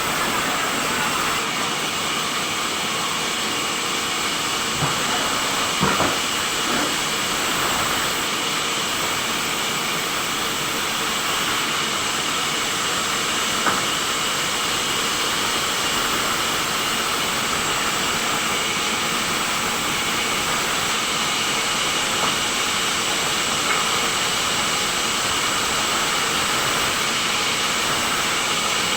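Sawmill machinery running steadily while cutting timber: an even hiss with a faint high whine, and a few faint knocks.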